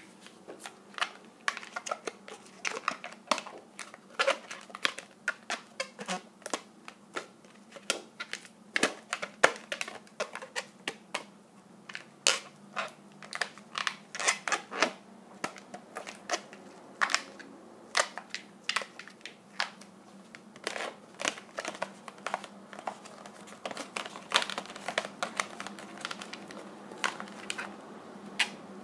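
Latex modelling balloons being twisted and worked by hand, giving irregular short squeaks and rubbing creaks, several a second.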